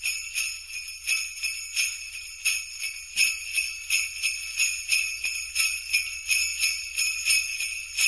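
Sleigh bells shaken in a steady rhythm, about three shakes a second, each shake a bright metallic jingle.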